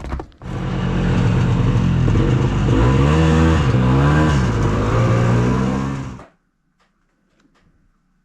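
Rebuilt Ski-Doo Tundra snowmobile engine running loud, its pitch rising and falling with the throttle. It cuts off abruptly about six seconds in.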